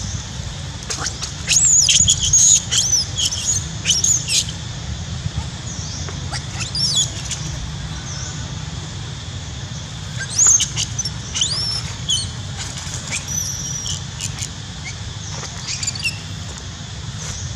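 Infant long-tailed macaque crying: short, high-pitched squeals that arch and fall, in clusters near the start, about ten seconds in, and again near the end, over a steady low hum.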